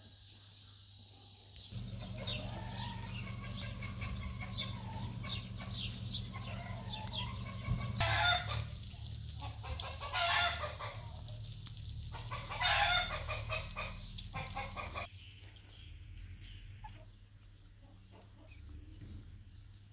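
Chickens clucking and calling, with three loud calls about two and a half seconds apart, over a steady low hum and the hiss of a lawn sprinkler spraying water. Near the end it drops to quieter, scattered clucking.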